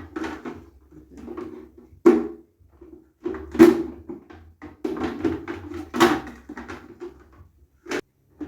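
An egg tray and its packaging being handled: a run of knocks, clicks and rustles, with louder knocks about 2, 3.5 and 6 seconds in and a last sharp one near the end.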